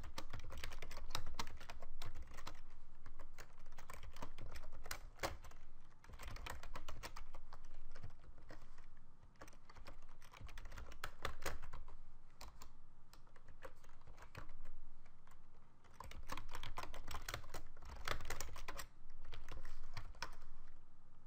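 Typing on a computer keyboard: quick runs of keystrokes separated by short pauses, sparser for a few seconds around the middle.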